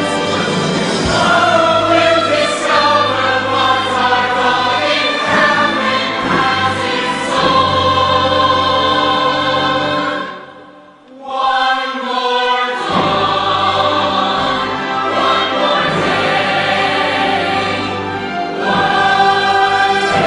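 Full choir singing with orchestra in a musical-theatre ensemble number. The sound drops away almost to nothing about eleven seconds in, then a few held notes lead back into the full choir.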